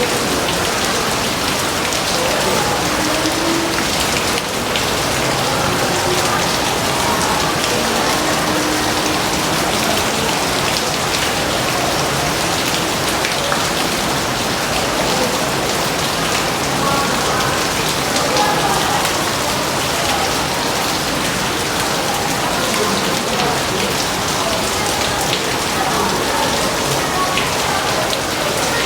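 Steady rain falling, a dense even hiss full of individual drop impacts, with no thunder clearly heard.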